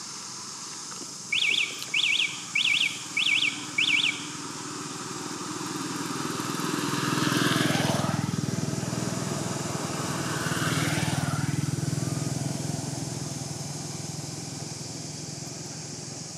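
A bird calls five times in quick succession: short chirps that sweep up and down in pitch. Then two vehicles pass by one after the other, their engine noise swelling and fading away, the first with a falling pitch as it goes past.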